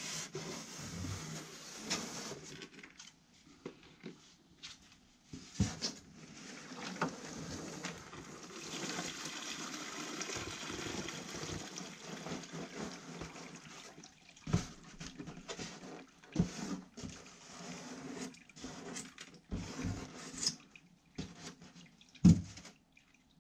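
Water pouring from a foam box through a plastic strainer into a bucket as live pink nippers are drained off. The pour runs steadily and is heaviest around the middle, then gives way to scattered knocks of the box and strainer being handled, with one loud knock near the end.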